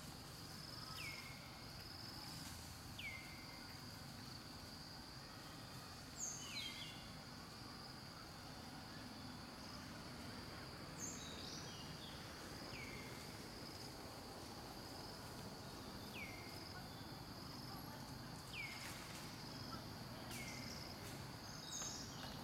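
Steady high-pitched insect drone of the tropical forest, with a short falling whistled call repeating about every two seconds and a few higher calls.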